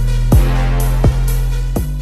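Background music with a heavy electronic hip-hop beat: deep kick drums that drop in pitch, about one every three-quarters of a second, over a steady bass line with crisp hi-hat hits.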